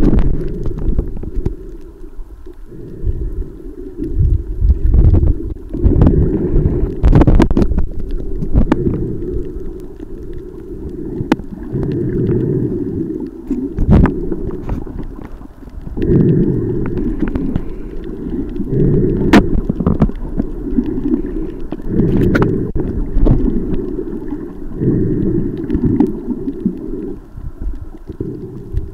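Muffled underwater water noise picked up by a submerged camera: a low rumble and sloshing that swells and fades every few seconds, with occasional sharp clicks.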